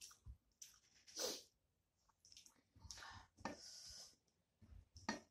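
Faint chewing and mouth sounds of a person eating rice and curry by hand, in short irregular bits, with a breath through the nose partway through.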